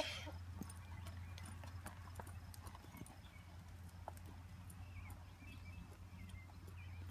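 Faint hoofbeats of a ridden horse on a soft dirt arena, scattered irregular clops over a steady low hum. A short, sharp noise right at the start is the loudest thing.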